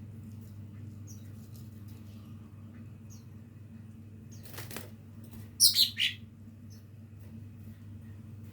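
Young cucak ijo (green leafbird) practising its song: scattered faint short high chirps, then a short rustle and, a little past the middle, three loud chirps sliding down in pitch. A steady low hum runs underneath.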